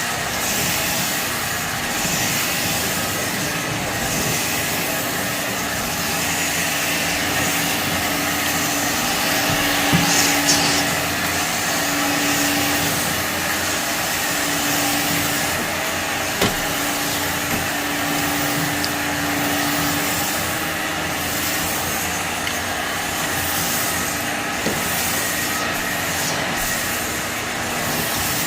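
Shark vacuum cleaner running steadily over heavily soiled carpet, with a few sharp clicks as debris is sucked up.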